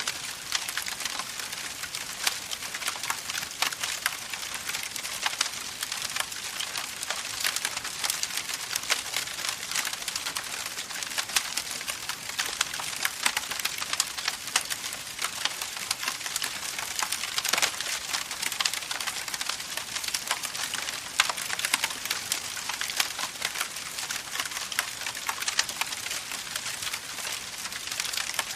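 Campfire burning with a steady, dense crackle of small pops and snaps over a soft hiss.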